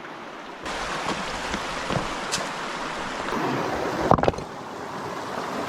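River water rushing over rocks as a steady noise, growing louder a little under a second in. A few sharp knocks sound over it, the loudest a little after four seconds in.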